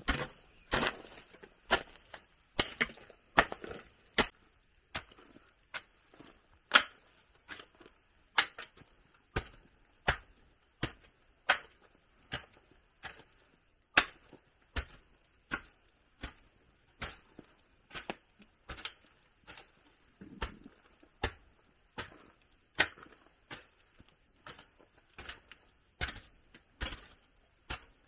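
Hand tool striking wood in a steady run of sharp knocks, a little under two a second, as timber is worked.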